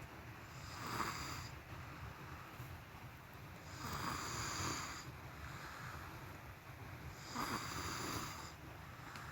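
A person snoring, three slow snores about three seconds apart.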